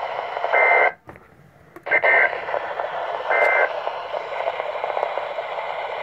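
NOAA Weather Radio broadcast from a Midland weather radio's speaker: the Emergency Alert System end-of-message data bursts, three short raspy two-tone digital squawks about 1.4 s apart, over steady radio static. The static cuts out for under a second after the first burst.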